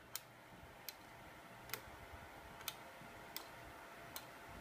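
Faint sharp clicks from a kacher high-voltage coil's capacitor-charging circuit, evenly repeating about once every 0.8 seconds.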